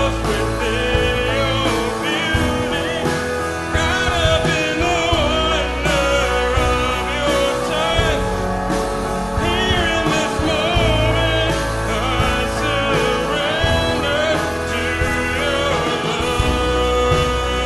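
Worship band playing a song with a lead vocal singing over held chords and long, deep bass notes.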